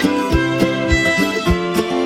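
Background music: bowed strings and guitar over a steady beat.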